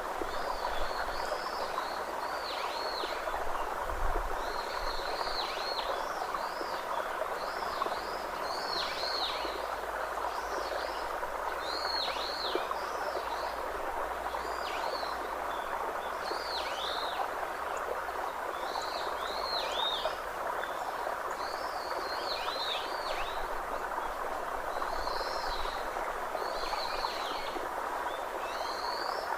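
Birds calling over and over in short, downward-swooping chirps, about one a second, above a steady rushing background of natural ambience.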